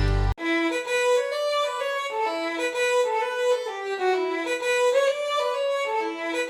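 Background music: a solo bowed-string melody of held notes, with no bass or drums, taking over when a fuller, bass-heavy track cuts off abruptly just after the start.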